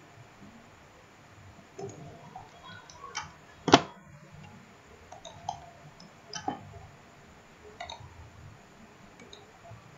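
Scattered computer mouse clicks as points are picked, with one much louder sharp click a little under four seconds in.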